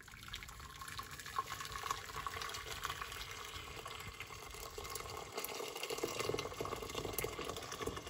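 Freshly boiled water pouring from an electric kettle into a stainless steel pot, a steady splashing stream.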